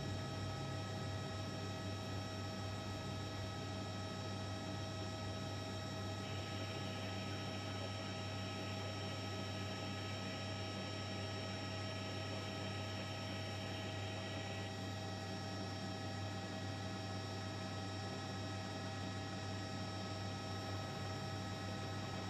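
Steady electrical-sounding hum with several high, steady whining tones above it, unchanging throughout. A faint hiss joins it for about nine seconds in the middle.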